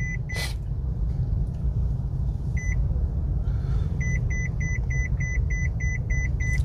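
Electronic beeping: a few separate short high beeps, then a steady run of about ten beeps at roughly three a second, over a steady low rumble.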